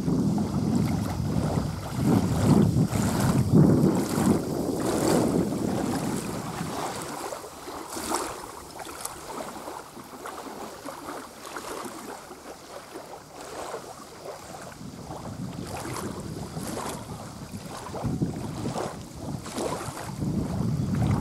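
Wind buffeting the microphone in gusts over small waves lapping a sandy lake shore. The wind eases off in the middle and picks up again near the end.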